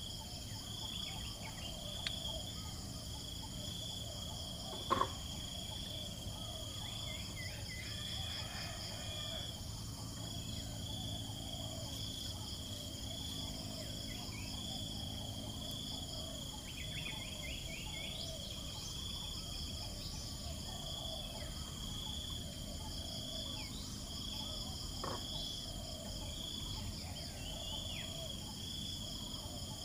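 Steady insect chorus, a high, evenly pulsing chirring that carries on throughout, with one sharp knock about five seconds in.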